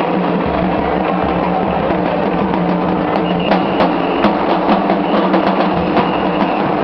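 Fans' cheering-section drums beating among the crowd, with a run of sharp hits in the second half.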